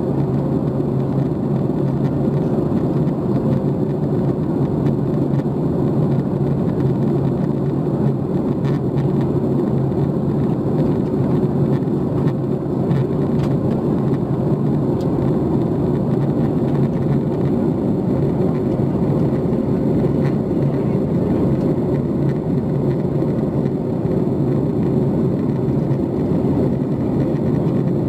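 Steady in-flight cabin drone of a Boeing 737 MAX 8, heard from inside the cabin: CFM LEAP-1B jet engine noise and airflow, with a constant low hum and no change in pitch or level.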